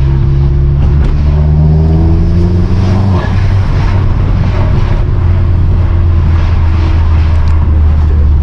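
Vauxhall Astra H VXR's turbocharged 2.0-litre four-cylinder accelerating under boost, its pitch rising for about three seconds. The rise breaks off suddenly with a short rush of noise, and the engine then runs steadily at a lower pitch. Its Forge recirculation valve has been freshly rebuilt.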